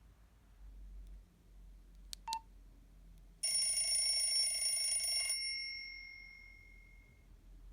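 Nokia 112 mobile phone playing a bell-like ringtone through its small speaker. It starts suddenly about halfway through, sounds for about two seconds, then cuts off, leaving a few high tones ringing away. Two faint clicks come just before it.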